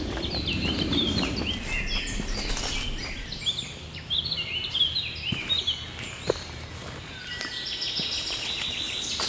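Several woodland songbirds singing in overlapping phrases of quick chirps, with a rapid trilled song near the end. A few light footfalls on the earth path.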